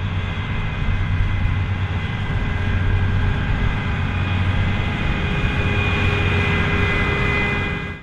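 Claas Lexion 8900 combine harvester running steadily while harvesting, a deep engine hum under a high, steady machinery whine. The sound cuts off suddenly at the end.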